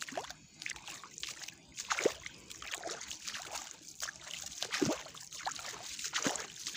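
Feet wading through calm, shallow seawater: irregular sloshing splashes and drips, about two a second.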